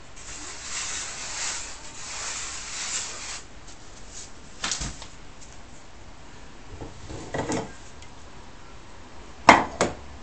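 Dry semolina being poured and rubbed by hand in a wooden bowl, a grainy hiss for the first few seconds. A few light knocks follow, then two sharp knocks close together near the end, the loudest sounds here.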